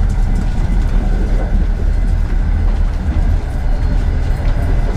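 Steady low rumble of a passenger train carriage under way, heard from inside the corridor of a compartment sleeping car.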